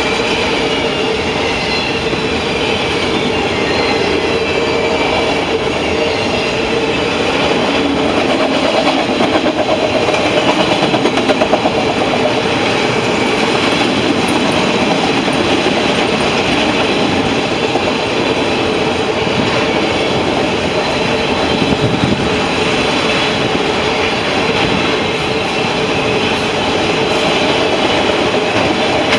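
A fast freight train of loaded autorack cars rolling past, with steady wheel-on-rail noise and clickety-clack from the cars passing over the rail joints.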